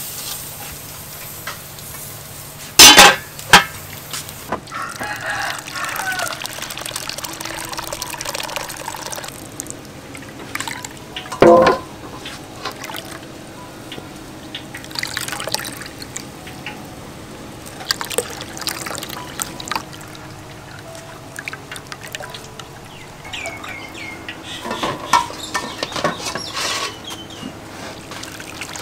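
Wet grated coconut squeezed by hand through a wire strainer, coconut milk trickling into a bowl, and water poured from a steel bowl onto grated coconut near the end. Chickens call in the background, and two brief louder sounds come about three and eleven seconds in.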